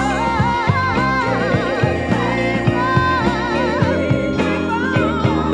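Gospel song: a singer holds long wordless runs that waver with heavy vibrato over a steady band accompaniment.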